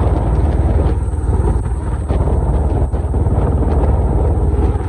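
Royal Enfield motorcycle running under way, a steady low rumble.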